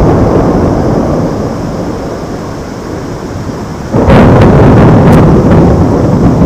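Thunder: a clap at the start that rumbles away and fades, then a second, louder clap about four seconds in, crackling and rumbling on.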